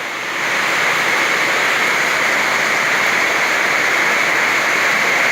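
Very heavy rain pouring down in a summer storm: a dense, steady hiss that swells about half a second in and then holds.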